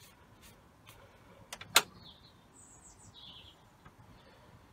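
A single sharp click about two seconds in, with a few fainter ticks before it, then a bird chirping a few times.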